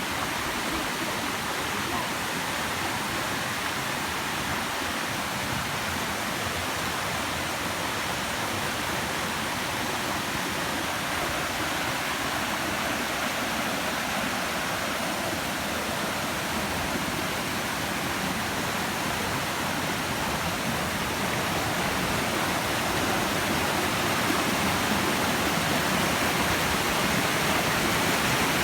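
Water pouring over a river waterfall: a steady rush of falling water that grows a little louder near the end.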